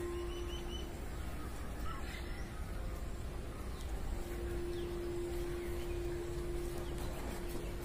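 Outdoor background of birds calling: a few short high calls near the start and more faint calls a couple of seconds in. A steady low hum stops about a second in and comes back about four seconds in.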